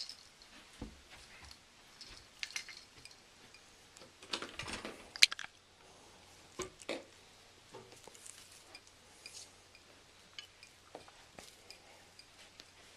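Faint handling sounds of Christmas tree ornaments being hung: scattered light clinks, clicks and rustles, the sharpest click about five seconds in.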